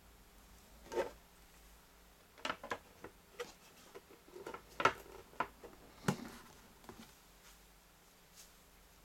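Hard plastic clicks and knocks as the clear cover of an LED warning light bar is handled and fitted onto its base. There is one knock about a second in, then a cluster of sharp clicks and taps between about two and a half and six seconds in.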